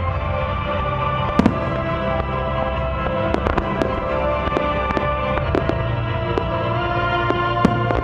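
Fireworks shells bursting in sharp bangs and crackles, the first about a second and a half in, then in scattered volleys, over music with held chords played for the display.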